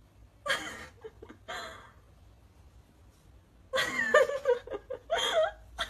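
A person laughing and giggling: two breathy bursts near the start, then a run of short giggles about two-thirds of the way in.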